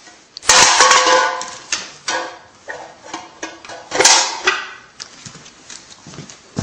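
A dog walking across a hard floor, its claws clicking, with two louder rasping noises about half a second and four seconds in; the clicking runs quickly and closely from about five seconds in.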